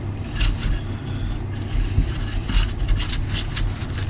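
Quick, irregular rubbing and scrubbing strokes on a nitro RC buggy's body and chassis as it is wiped clean of degreaser and mud, over a steady low hum.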